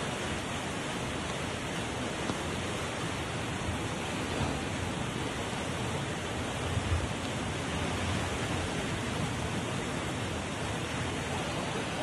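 Fast-flowing muddy floodwater rushing down a street in a torrent: a steady, unbroken rush of water.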